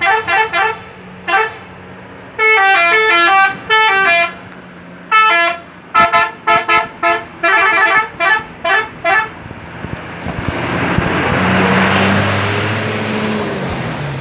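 Telolet horn on a Shantika bus: a run of short, loud multi-tone blasts stepping between notes in a quick melody. After that the bus drives past, its engine and tyre noise swelling to a peak and then fading.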